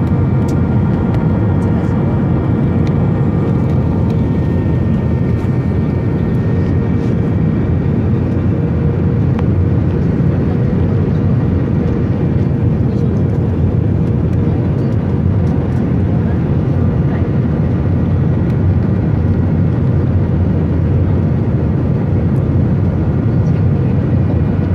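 Airbus A320 cabin noise from a seat over the wing during descent: a steady roar of the jet engines and airflow, with faint steady whining tones on top.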